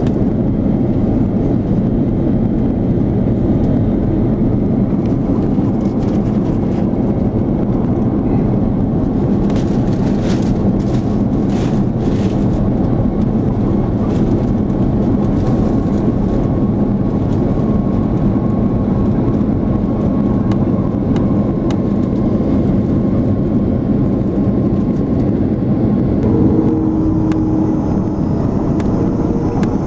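Airbus A330 airliner cabin noise on descent, heard at a window seat: a steady, loud rush of engine hum and airflow. A few seconds before the end a faint higher steady hum joins in.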